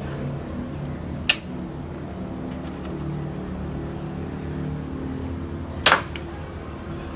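Cheap spring-loaded toy gun firing soft bullets: two sharp snaps, the first about a second in and the louder second one near the end, over a steady low hum.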